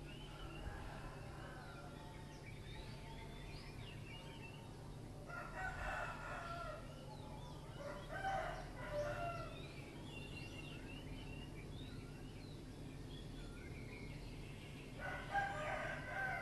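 Rooster crowing three times, each crow about a second and a half long: about five seconds in, again around eight seconds, and once more near the end.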